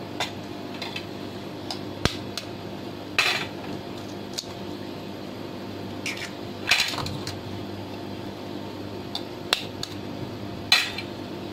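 Two eggs being cracked against a glass mixing bowl: a few sharp knocks of shell on glass, the loudest about three, seven and eleven seconds in, with lighter clicks between.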